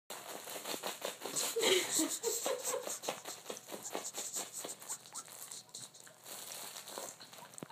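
A cat scuffling and scratching in catnip: quick rustling, scratching clicks, busiest over the first few seconds and thinning out toward the end.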